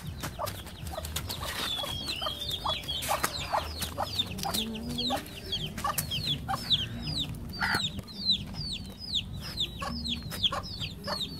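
Chickens: chicks peeping rapidly in short, high notes that fall in pitch, several a second, with lower clucks of a hen among them.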